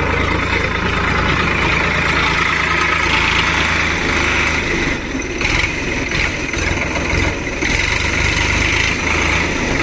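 Sonalika DI-740 III tractor's diesel engine running steadily close by, its level wavering and dipping slightly around the middle.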